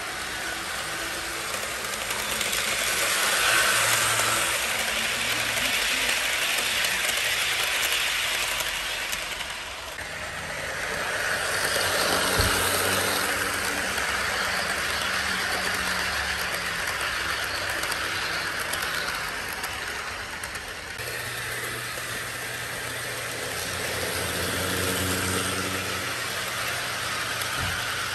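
HO-scale model trains running on sectional track: wheels clattering over the rails over a steady motor hum. The sound swells and fades about three times as trains pass close by.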